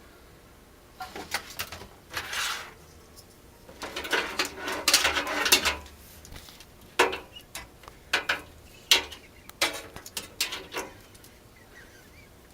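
Computer power and data cables being handled and plugged in inside a PC case: plastic rustling for a few seconds, then a series of sharp clicks and knocks as connectors seat.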